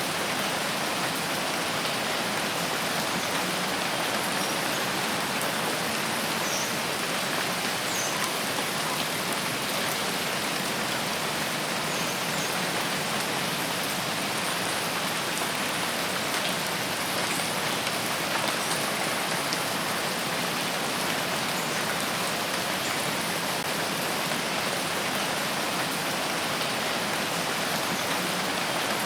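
Steady, heavy rain falling in a rain forest: an even, unbroken hiss with no pauses. A few faint, very short high sounds show up briefly near the middle.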